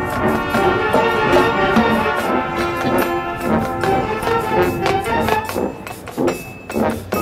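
Marching band playing: brass sustaining and moving through chords over drum-line percussion, with the drum hits more prominent near the end.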